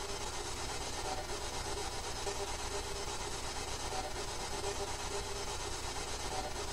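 Steady hiss with a low hum underneath and faint wavering tones, unbroken by any sudden sound: the background noise of a quiet, dark room on the recording while a spirit's answer is awaited.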